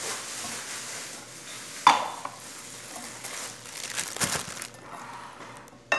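Wire whisk stirring a milky mixture in a glass bowl, with one sharp clink about two seconds in.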